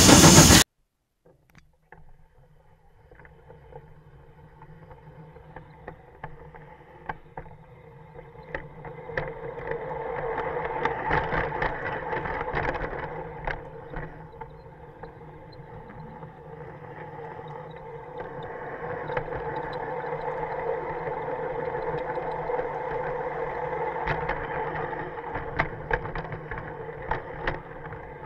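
Electric drive of an LGB G-scale model locomotive whining steadily as it hauls loaded tipper wagons, with frequent clicks of the wheels over the track, heard from a camera riding on the train; the whine grows louder about ten seconds in. A loud sound cuts off suddenly about half a second in.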